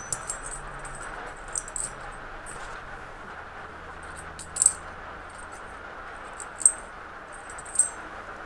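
Small steel-wire valve springs being set into a finned aluminium cylinder head, giving a few light metallic clinks spread through, over a steady faint workshop hiss.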